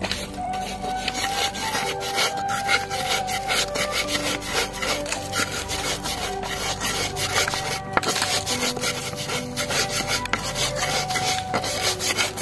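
Stone pestle (ulekan) grinding a spice paste of coriander, salt and turmeric in a cobek mortar: a continuous run of gritty rubbing and scraping strokes, pestle against the mortar's surface.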